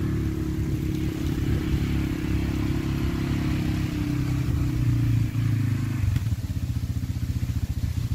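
CFMoto CForce 500 ATV's single-cylinder engine running at low speed, then easing off about six seconds in to a lower, pulsing idle.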